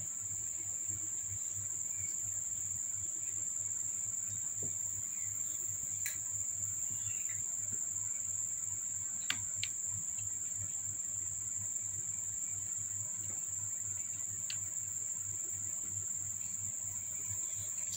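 A steady high-pitched whine runs without a break, with a low hum beneath it and a few faint clicks about six and nine seconds in.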